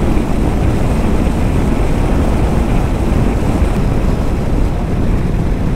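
Loud, steady wind rush buffeting the microphone while riding a Bajaj Dominar 400 motorcycle at highway speed, with road noise mixed in.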